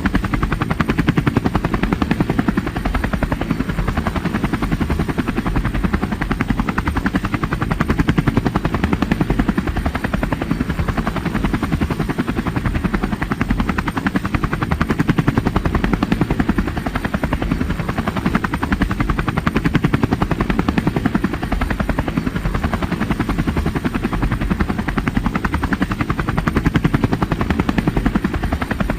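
Helicopter in flight: a steady rapid thudding from the rotor blades with engine noise underneath, continuous and even.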